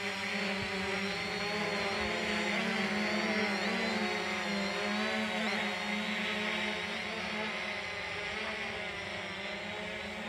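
FIMI X8 SE quadcopter drone hovering, its four propellers giving a steady whine of several tones together. From about two to six seconds in the pitches waver up and down as the drone manoeuvres, then settle again.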